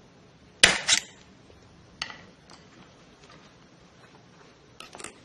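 Sharp metallic clicks of a screwdriver prying at a C-clip on the splined output shaft of an automatic transmission: two close together about half a second in, one near two seconds, and two more near the end.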